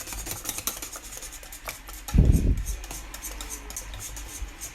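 A spoon scraping and clicking against a saucepan as chocolate is stirred in to melt into a butter and milk mixture, with a loud dull thump a little over two seconds in.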